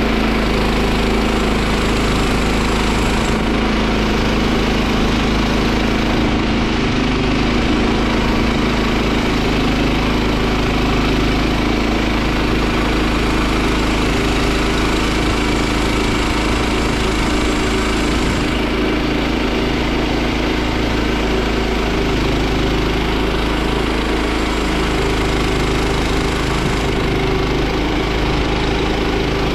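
Wood-Mizer LX25 portable sawmill's engine running steadily at a constant speed. A higher hiss above it drops away and comes back a few times.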